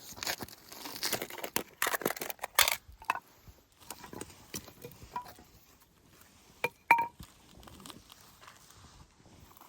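Utensils and cookware being handled: a busy rattle and clatter for the first few seconds, then scattered small knocks, with one sharp metallic clink that rings briefly about seven seconds in.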